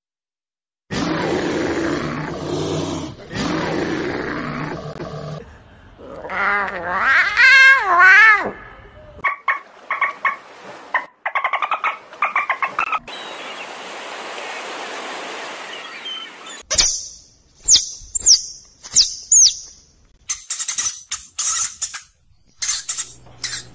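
A run of animal calls. A black bear growls for the first few seconds. Then come whistles that waver up and down, rapid clicking chatter and a steady hiss of water, typical of dolphins. A rat's short, very high squeaks follow, repeated many times near the end.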